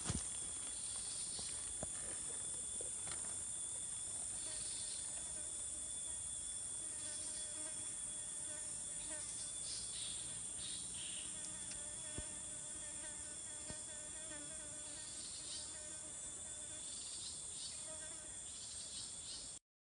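Tropical forest insect chorus: a steady, high-pitched drone, with shorter insect calls coming and going over it. A few faint clicks are heard, and the sound cuts off suddenly near the end.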